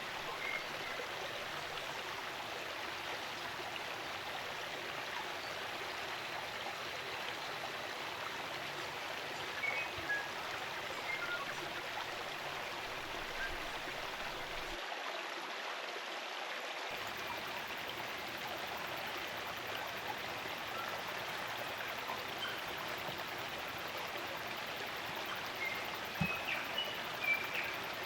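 Spring-fed stream running steadily, with scattered brief bird chirps over it, a few more near the end.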